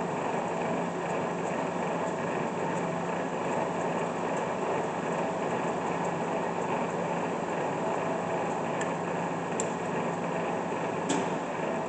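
Bridgeport Series II 4 hp vertical mill running under power, its spindle turning with the power quill feed engaged, giving a steady motor and gear hum. Two sharp clicks come near the end.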